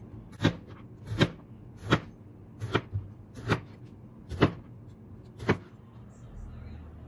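Chef's knife slicing rounds off an eggplant, each stroke ending in a sharp knock on the cutting board: seven even strokes about three-quarters of a second apart, stopping near the end.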